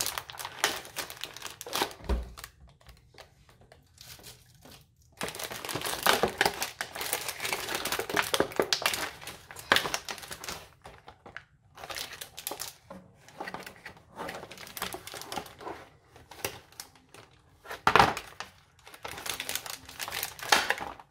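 Plastic and cardboard toy packaging crinkling and rustling in uneven spells as it is handled and cut open with scissors, with short quiet gaps between. A sharp knock stands out near the end.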